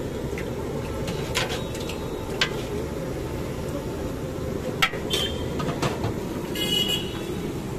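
A metal ladle clinking against a large metal cooking pot and steel plates, a handful of sharp clinks, over a steady rumble of street traffic. A brief high ringing sound comes near the end.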